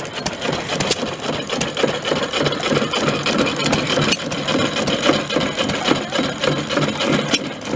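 Antique hit-and-miss stationary engines running, with a steady, fast mechanical clatter.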